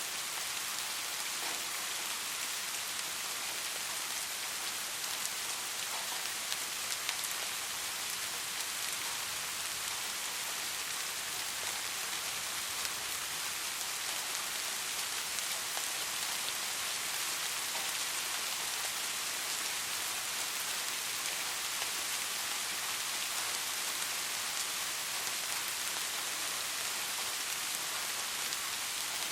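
Steady rain falling on a surface, an even hiss of many drops with faint scattered drop ticks.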